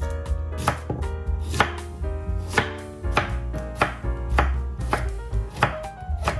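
Kitchen knife chopping a daikon radish into sticks on a wooden cutting board, the blade striking the board about every half second, with light background music underneath.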